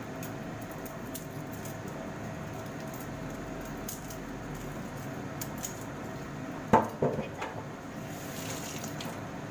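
Kitchen handling sounds over a steady hum: faint clicks of a kitchen knife working at a garlic clove, then a single sharp knock about seven seconds in with a few smaller knocks after it, and a brief hiss near the end.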